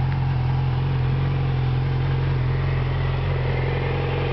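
2007 Yamaha R6's inline-four engine idling steadily.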